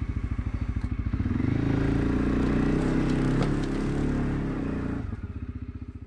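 CF Moto CForce 400 ATV's single-cylinder engine running as the quad drives. The engine note picks up about a second in, holds steady, then eases off near the end.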